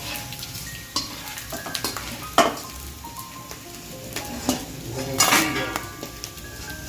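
Edible acacia gum (gund) frying in ghee in a kadai, sizzling and crackling as it puffs up, with a spoon scraping and clinking against the pan. A sharp clink comes about two and a half seconds in and a burst of scraping a little past five seconds. The crackle is the sign the gum is frying through so it will not stay raw inside.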